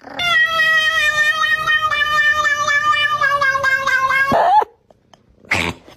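A cat's long drawn-out yowl, held at a steady pitch for about four seconds, then falling away sharply and stopping. A short breathy noise follows near the end.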